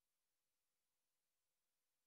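Near silence: only faint recorder hiss with a faint steady hum.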